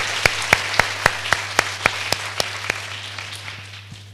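Audience applauding, with one nearby pair of hands clapping in a steady beat of nearly four claps a second; the applause fades away near the end.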